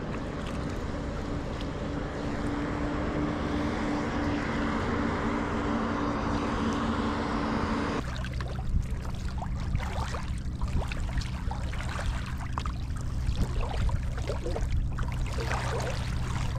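Water rushing and lapping around a paddled kayak, over a faint steady low mechanical hum. About halfway through it changes to short, irregular splashes and slaps of water against the hull, with a deeper steady hum underneath.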